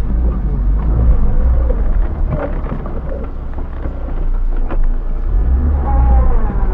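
A car driving slowly over a rough dirt trail: a heavy low rumble with the engine note rising and falling under changing load, and a few sharp knocks and thumps from the body and suspension over bumps.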